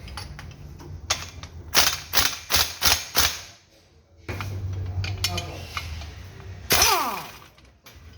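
About five sharp metallic bangs in quick succession, such as tools striking or hammering on metal during engine removal. A few seconds later comes one loud metal scrape that falls in pitch, over a low steady hum.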